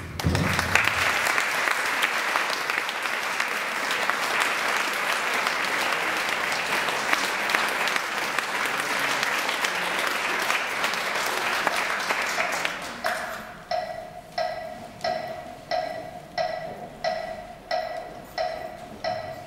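Audience applauding. About thirteen seconds in, the clapping falls into a steady rhythm in unison, about one and a half claps a second.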